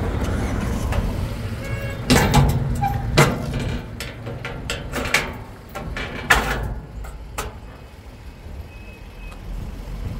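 Low steady rumble of a running motor vehicle, with a handful of sharp knocks and clanks between about two and seven seconds in.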